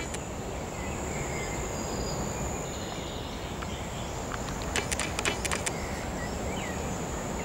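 Sneakered feet shifting in shallow river water over stones, giving a quick cluster of clicks and light splashes about five seconds in, over a steady low rush of outdoor water-and-air noise. A thin, high, insect-like whine fades out about halfway through.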